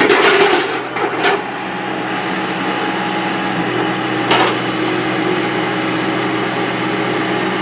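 Skid steer engine running steadily under the machine's work, with a few knocks and clatter in the first second or so and one more knock about four seconds in.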